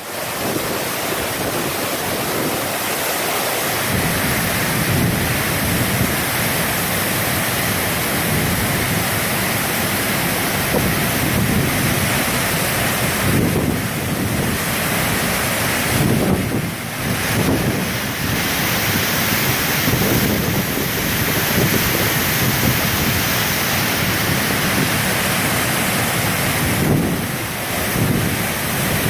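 A waterfall pouring steadily in a loud, even rush, heard close up in heavy spray. From about four seconds in, gusts buffet the microphone in an uneven low rumble.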